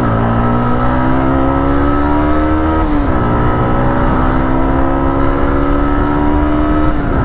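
Motorcycle engine accelerating hard through the gears. The pitch climbs steadily and drops sharply at three upshifts: at the start, about three seconds in, and near the end. There is little wind noise on the microphone.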